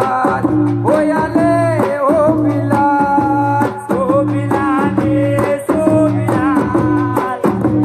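Loud amplified Gujarati tribal folk music for a stage dance: a wavering sung or played melody over a steady low drone, with regular drum strokes.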